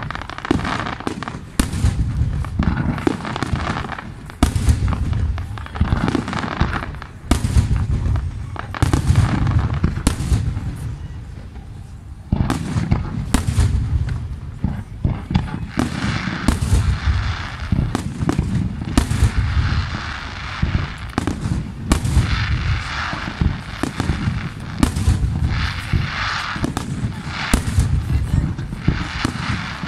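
Fireworks display: a rapid, irregular run of bangs and booms from bursting aerial shells, with a brief lull about ten seconds in.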